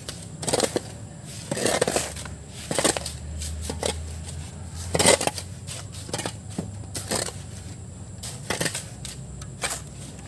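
Several hand shovels scooping river sand and tossing it into a steel dump-truck bed. Irregular short scrapes and thuds, roughly one every second, from several workers at once.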